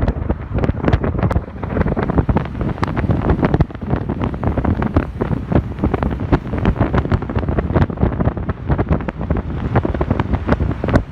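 Wind buffeting the microphone: a heavy, steady low rumble broken by constant crackling pops.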